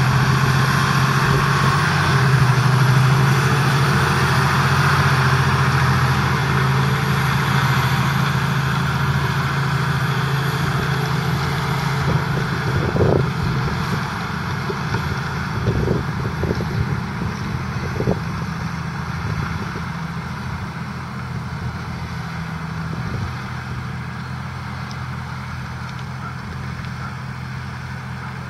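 Valtra T174's 7.4-litre six-cylinder diesel engine running steadily under load while pulling a five-furrow reversible plough, growing gradually fainter. A few short knocks sound about halfway through.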